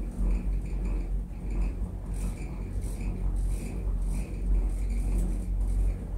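Steady low rumble of a funitel (double-cable detachable) gondola cabin running along its haul ropes, heard from inside the closed cabin, with a faint high tone that comes and goes.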